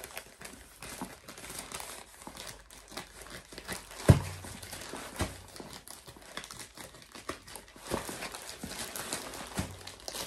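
Parcel packaging crinkling and rustling as it is cut and pulled open by hand, in irregular crackles, with a sharp thump about four seconds in and a few lighter knocks later.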